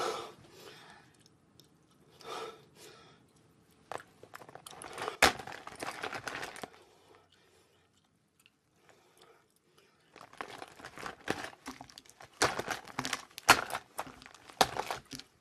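A clear plastic makeup pouch being rummaged through by hand: crinkling and rustling of the plastic with sharp clicks of small items knocking together, in irregular bursts. There is a pause of about two seconds in the middle.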